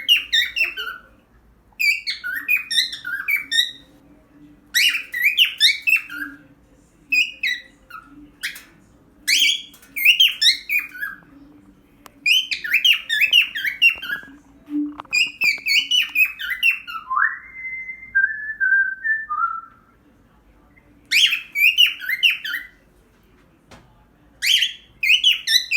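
Cockatiel singing: repeated bursts of rapid warbling, whistled chirps, each a second or two long with short pauses between. About two-thirds of the way through comes a lower whistled phrase with gliding notes.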